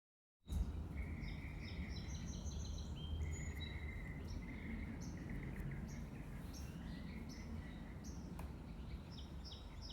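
Several birds chirping and calling in short, repeated high notes over a steady low background rumble.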